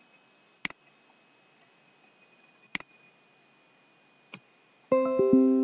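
Two sharp computer mouse clicks and a fainter third click, then near the end a Windows 10 notification chime: two quick mallet-like notes that ring out and slowly fade, announcing a pop-up simulation warning.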